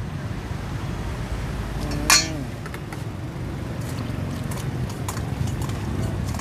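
A spoon clinking against bowls and containers as food is scooped, with one sharp ringing clink about two seconds in and a few lighter taps later, over a steady low background rumble.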